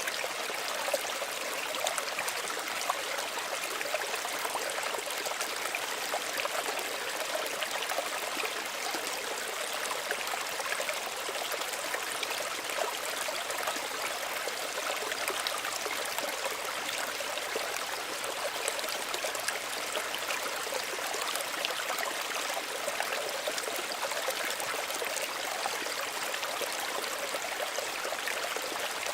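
Small stream running over stones, a steady gentle babble and trickle of water with many small splashes.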